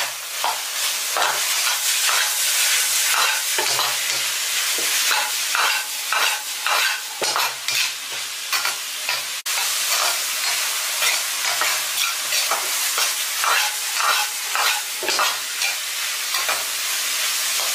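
Blanched long beans and minced pork stir-frying in a wok over high heat: a steady sizzle, with the spatula scraping and tossing the beans in quick repeated strokes.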